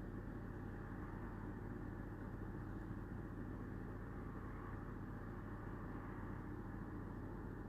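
Whirlpool WFO3P33DLXUK dishwasher running steadily through its final rinse, a constant low hum under an even wash of noise.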